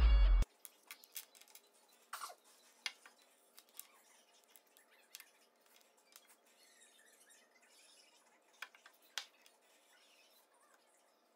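Intro music cuts off abruptly half a second in. After that come scattered light clicks and taps of small Baltic birch plywood pieces being handled and set down on a wooden workbench.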